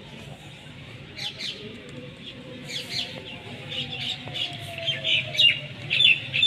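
Birds chirping: many short, quick chirps that grow busier and louder toward the end.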